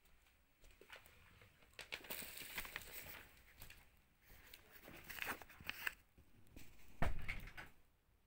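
Paper instruction leaflet rustling and crinkling as it is handled and slid across a fabric-covered surface, with small clicks. A dull knock about seven seconds in is the loudest sound.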